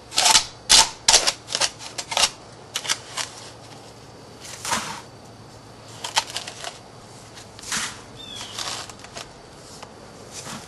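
Heat-treated flint and chert pieces clicking against each other, with sand scraping, as they are dug out of a sand-filled turkey roaster. A quick run of sharp clicks and scrapes fills the first three seconds or so, then scattered clicks and short scrapes follow.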